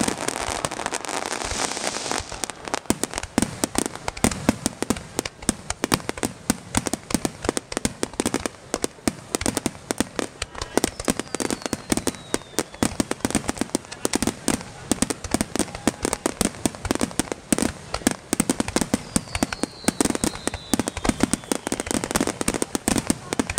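Fireworks finale barrage: a rapid, unbroken string of overlapping bangs and crackles from aerial shells bursting, with a couple of faint falling whistles.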